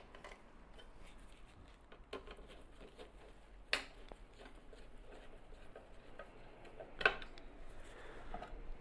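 Faint small clicks and ticks of a Phillips screwdriver turning a screw that fixes a metal headlight grille to a scooter headset, with two sharper clicks, one about four seconds in and one about seven seconds in.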